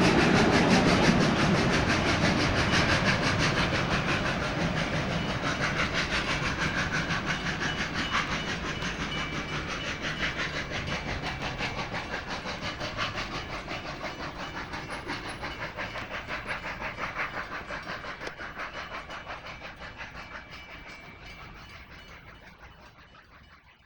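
Steam tank engine F 251 with its train moving away. Its rapid exhaust beats and the clatter of the carriages fade steadily until they can barely be heard.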